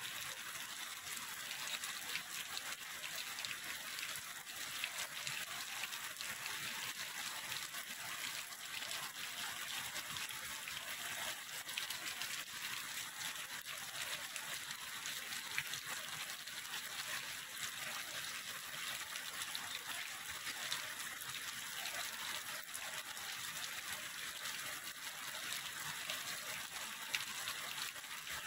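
Heavy rain falling, a steady hiss of countless drops.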